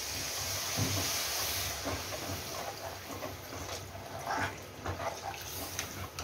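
Water poured from a steel bowl into a steel kadai of hot fried masala, a steady pour with a hiss, loudest in the first two seconds and then thinning out as the pour slows.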